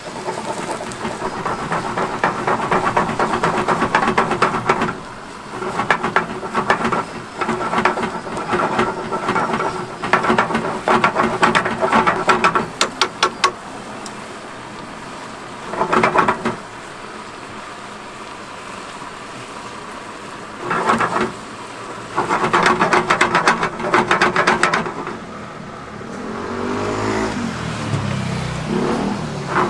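Cream pasta sauce boiling hard in a frying pan over a gas burner: rapid bubbling and spitting that comes and goes in bursts of a few seconds. Near the end a low droning sound rises and falls in pitch.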